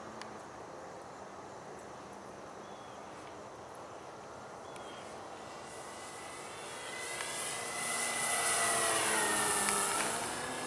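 Radio-controlled Hangar 9 P-47 Thunderbolt model plane making a low pass: its engine and propeller are faint at first, grow loud over the second half, then drop in pitch as it goes by near the end.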